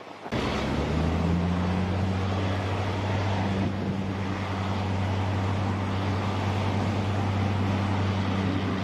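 Amphibious armored vehicle's engine running at a steady low drone as it drives through breaking surf, over the rush of the waves and spray. The engine comes in suddenly just after the start.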